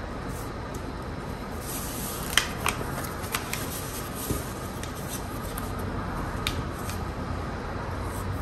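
Stiff paper being folded and creased by hand: scattered sharp crinkles and snaps, the loudest cluster a little over two seconds in, over a steady low background rumble.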